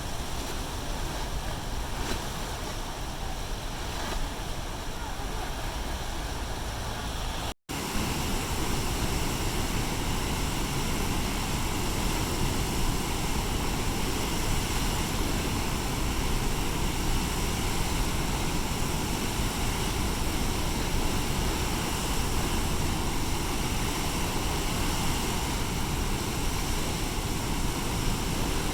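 Water released from Shihmen Reservoir pouring out in a steady, heavy rush. About a quarter of the way through it cuts out for a moment, then comes back slightly louder.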